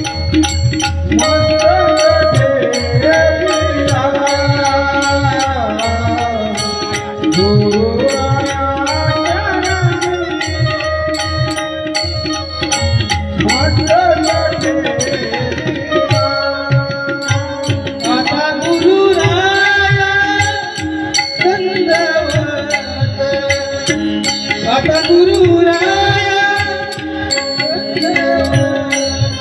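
Kirtan devotional music: a melody that glides up and down in pitch over a steady drone, with drum and cymbal strokes keeping an even beat throughout.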